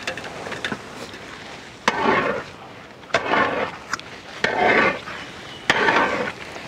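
Long-handled metal ladle scraping and turning thick carrot halwa in a large metal uruli, with a couple of light clinks, then four scraping strokes about a second and a half apart. The halwa is being stirred steadily so it does not stick to the pot.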